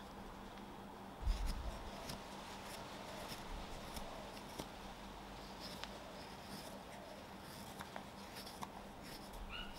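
A carving knife taking small slicing and scraping cuts in a green nectarine-wood fork blank, a scatter of faint scrapes and clicks, with a low thump about a second in.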